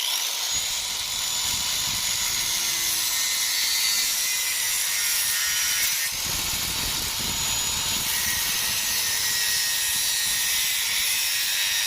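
Angle grinder cutting through a PVC pipe tee, starting abruptly and running steadily with a high whine whose pitch sags and recovers a little as the disc bites into the plastic.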